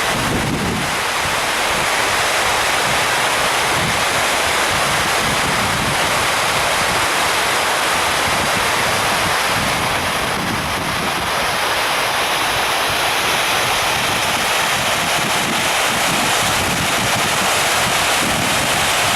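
Water fountain splashing with a steady rush, with wind buffeting the microphone in uneven low gusts.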